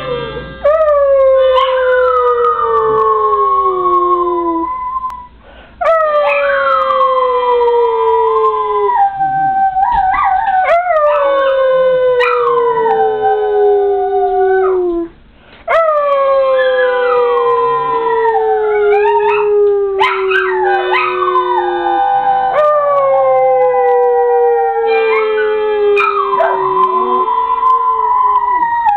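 Two small dogs, a schnauzer-yorkie mix and a West Highland white terrier, howling together in long howls that slide down in pitch, their voices overlapping. The howling breaks off briefly twice, about five and fifteen seconds in.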